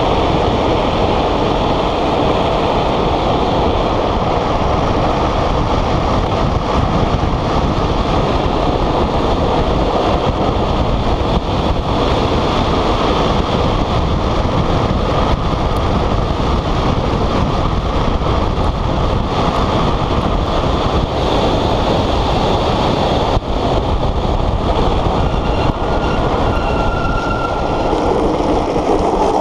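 Unpowered gravity speed trike rolling fast downhill: a steady rush of wind on the microphone with the rumble of the wheels on asphalt, and a brief thin squeal near the end.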